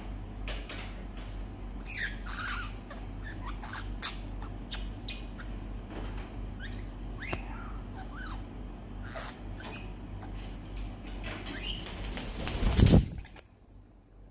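Short scattered bird chirps over a low hum. About twelve seconds in, a white cockatoo's wings flap, getting louder, then the sound cuts off suddenly.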